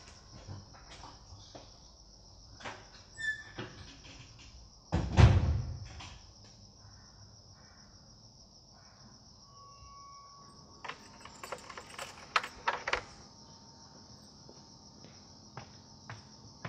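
Crickets chirping steadily in a night ambience. About five seconds in comes a single heavy thud, the loudest sound, and later there is a short run of sharp clicks and knocks.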